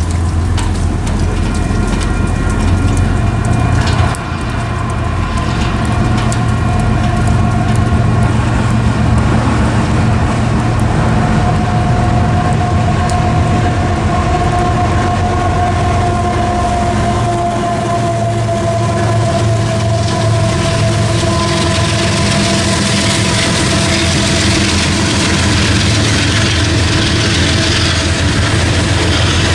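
Freight train passing close by: the steady deep rumble of diesel locomotives with a slowly falling whine, and the hiss of steel wheels on the rails building in the second half as the cars roll past.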